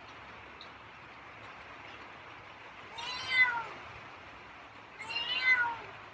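Feral cat meowing twice, about three and five seconds in, each meow short and falling in pitch.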